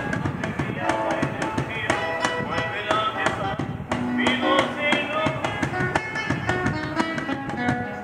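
Acoustic guitar strummed steadily, with a man singing along.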